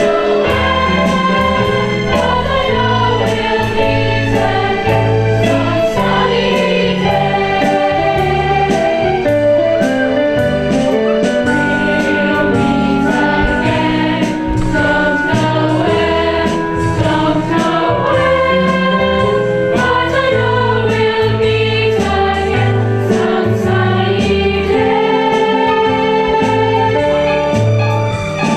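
A children's choir singing together over an accompaniment with a bass line and a steady beat, played over a small PA loudspeaker.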